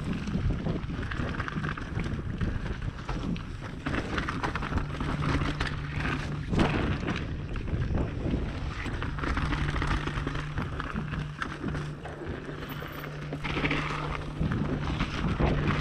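Mountain bike descending a dirt singletrack at speed, heard from an action camera on the rider: wind buffeting the microphone, tyres rolling over dirt and leaves, and the bike rattling and knocking over bumps. A steady low hum runs through much of the descent, starting about a third of the way in.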